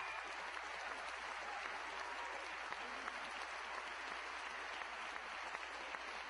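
Large audience applauding steadily in an auditorium.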